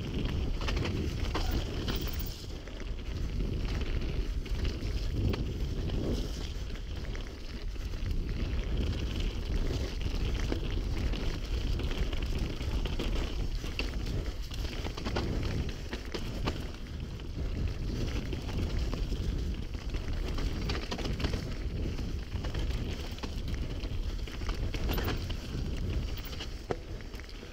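Mountain bike descending a rough dirt trail at speed: wind buffeting the microphone over the rumble of the tyres on dirt, with frequent knocks and rattles from the bike jolting over roots and bumps.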